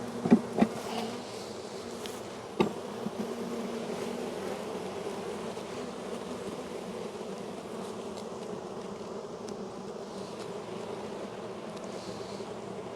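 A large honey bee colony buzzing steadily around the opened hive. A few sharp knocks come in the first second, and another at about two and a half seconds.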